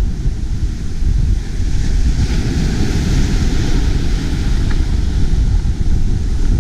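Atlantic surf breaking and washing up the beach, with a hiss of foam that swells through the middle, under heavy wind buffeting on the microphone.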